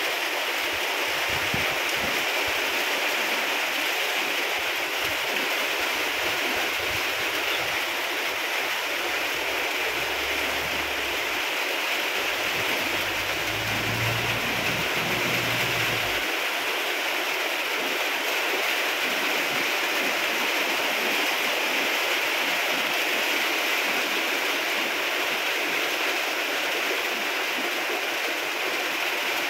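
Heavy rain falling steadily, a dense even hiss of drops on the ground, puddles and nearby roofs. A low rumble joins underneath from about ten to sixteen seconds in.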